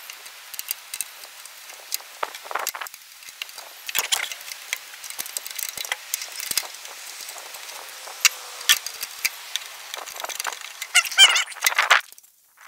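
Small clicks, taps and scraping of sheet-metal parts and a screw being handled while a cover is fitted over the smoker's wiring. A brief squeaky rasp comes near the end.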